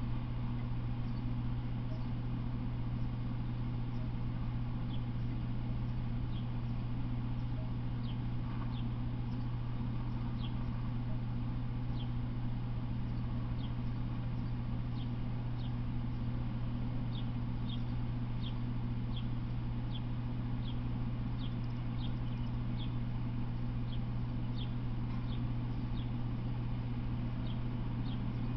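Short high chirps, repeated irregularly about once a second and thicker in the second half, over a steady low hum.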